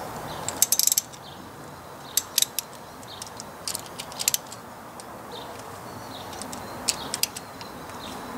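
Hand ratchet with a 10 mm socket clicking in about four short bursts of quick clicks, backing out the bolts of an engine's rear cover plate.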